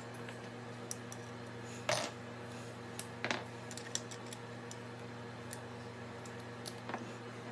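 Small metal parts and tools clinking and knocking on a workbench as they are handled: a handful of sharp separate clicks, the loudest knock about two seconds in. A steady low hum runs underneath.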